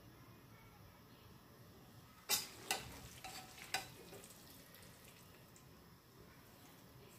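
Metal kitchen tongs clicking and knocking against the pan while lifting spaghetti out to plate it: four or five sharp clacks close together a couple of seconds in, over a faint hiss.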